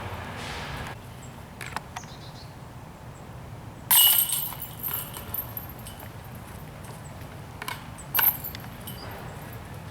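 Disc golf discs striking the chains of a metal basket: two chain jingles about four seconds apart, the first one about four seconds in and the loudest.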